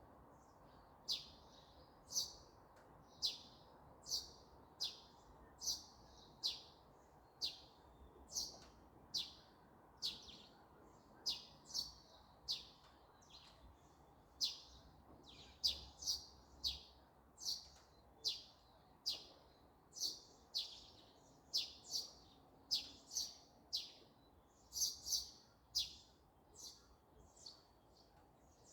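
A small songbird chirping over and over, one short, high chirp falling in pitch roughly every second, with a faint steady background hiss.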